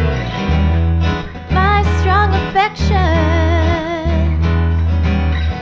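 Music: a song with strummed acoustic guitar over deep bass notes, and a voice that enters about two seconds in, singing a few notes and then a long wavering held note.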